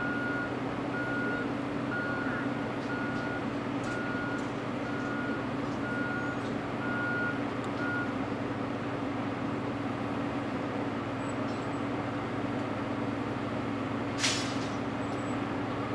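Heavy diesel construction machinery, Cat hydraulic excavators among it, running steadily. A backup alarm beeps about once a second and stops about halfway through. A brief sharp hiss comes near the end.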